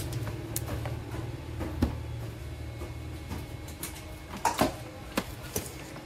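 Handling noise: scattered light clicks and knocks, the loudest pair about four and a half seconds in, over a faint low hum.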